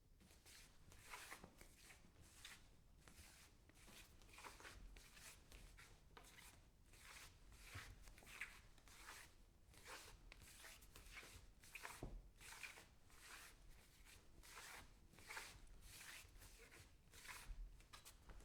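Bare feet scuffing and sliding on a wooden floor: quiet, repeated brushing scuffs, about two a second.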